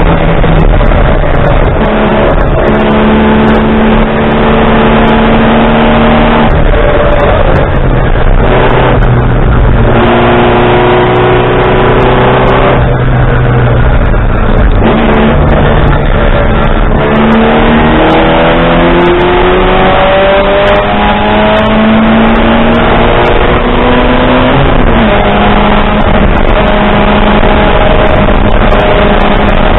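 Race car engine heard loud from inside the cockpit, running hard under racing load. Its pitch climbs with the revs and drops back sharply several times at gear changes, over heavy wind and road noise.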